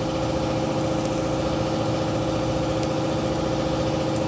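A motor-driven machine running steadily, with a constant hum and a low throb beneath it.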